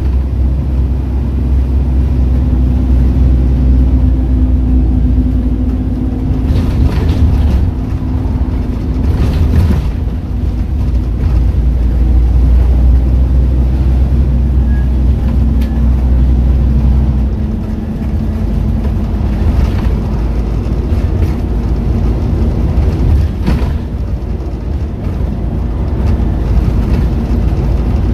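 Scania N230UD double-decker bus heard from inside the passenger cabin while driving: the engine runs steadily under road and wind noise. Its low note shifts a few times and drops noticeably about two-thirds of the way through.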